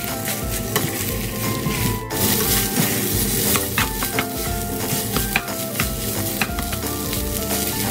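Rice stir-frying in a stainless steel pot: a steady sizzle with frequent clicks and scrapes as a spatula turns the rice over.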